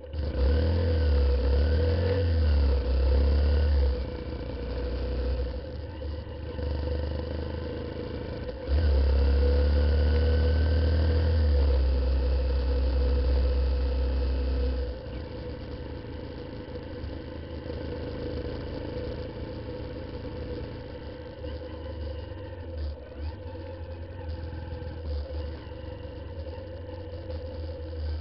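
Honda CBF125 motorcycle's single-cylinder engine running under way, with its revs rising twice, each time under heavy wind rumble on the microphone. After about the halfway point the wind drops and the engine runs more quietly and steadily.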